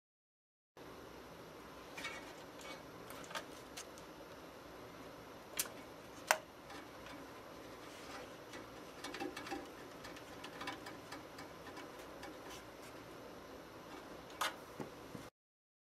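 Scattered small clicks and taps, the sharpest a little past five and six seconds in and again near the end, over a steady low hiss: hands working on parts while a motherboard is fitted into a PC case.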